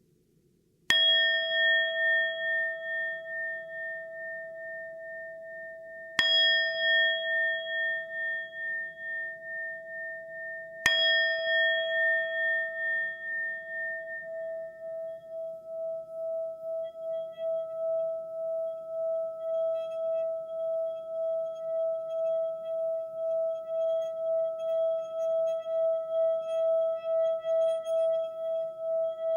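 Singing bowl struck three times, about five seconds apart, each strike ringing on with long-lasting, wavering tones. It then sings on in one steady, pulsing tone that slowly grows louder.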